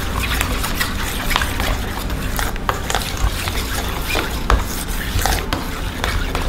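A metal spoon stirring a thick mayonnaise sauce in a stainless steel bowl, with frequent irregular clinks and scrapes of the spoon against the bowl.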